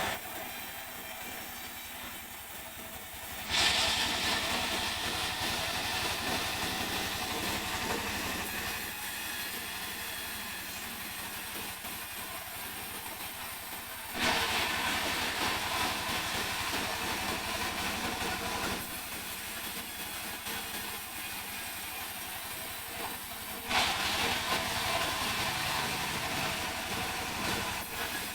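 Sawmill saw running and cutting mahogany timber, over a steady low hum. A harsh, hissing cutting noise rises suddenly three times, about ten seconds apart, and fades slowly after each rise. The mahogany is cutting hard, like stone.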